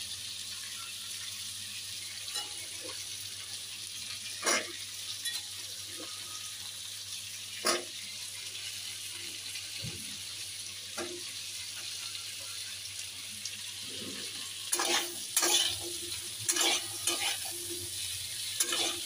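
Carrots, green beans and cauliflower sizzling steadily in ghee in a pan over a medium gas flame, with a spatula scraping and stirring now and then, and more busily in the last few seconds.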